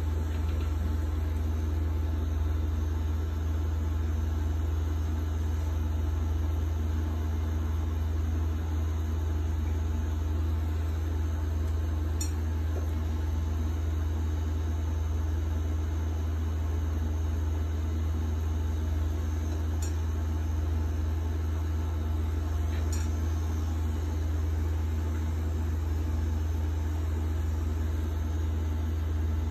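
Pen-style tattoo machine running steadily with a low, even hum, with a few faint ticks.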